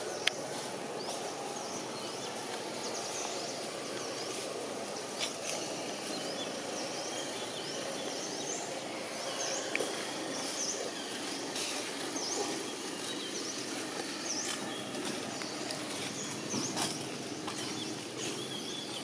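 Outdoor background noise with many short, high bird chirps repeating throughout. There is a sharp click right at the start and a few fainter clicks and rustles later.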